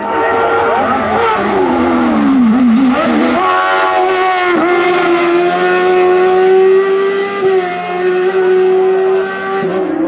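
Hill-climb race car engine revving hard. Its note swoops down and up several times in the first three seconds, then holds a high, steady pitch, with brief dips about four and a half and seven and a half seconds in.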